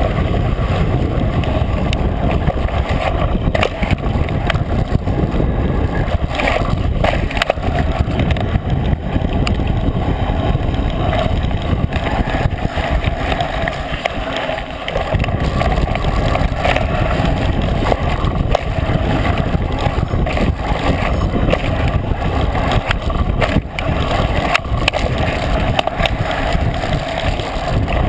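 Steady rush and low rumble of a mountain bike rolling fast over a dirt trail: tyre noise and wind buffeting on the bike-mounted camera's microphone, with scattered clicks and rattles from the bike.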